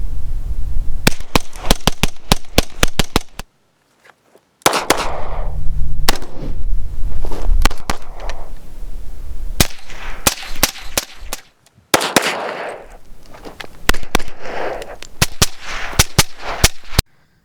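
Rapid gunfire: strings of shots a few per second, each with a rolling echo, in three stretches that cut off abruptly.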